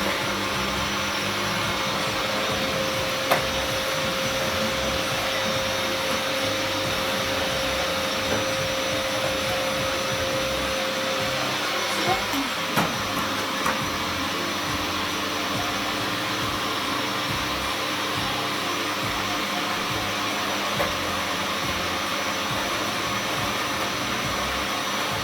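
Vacuum cleaner running steadily, with a few short knocks as it is worked across the floor.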